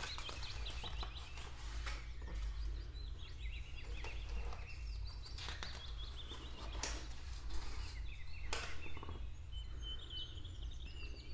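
Pages of a hardcover picture book being turned, with several sharp rustles, while small birds chirp over and over in the background above a steady low hum.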